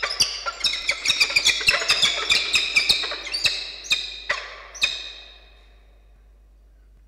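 Peregrine falcon calling: a rapid run of harsh, ringing calls, about four a second, that slow and stop about five seconds in.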